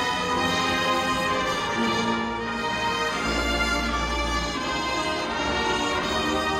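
Marching band brass and woodwinds playing slow, sustained chords, with a deep bass note entering about halfway through.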